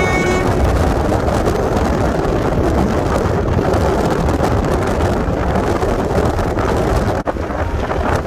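The last note of a bus's multi-tone musical horn, cutting off about half a second in. Then a steady, loud vehicle rumble with wind buffeting the microphone.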